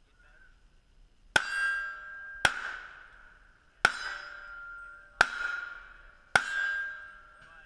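Five gunshots from a single-action revolver, a little over a second apart, each followed by the ringing of a steel target plate being hit.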